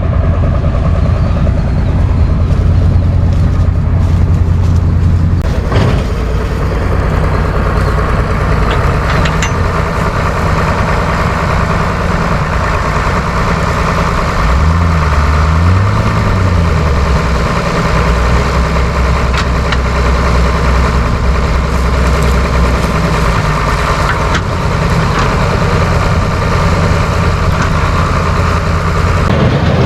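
Heavy farm machinery diesel engine running steadily under load, its pitch briefly rising and falling about fifteen seconds in.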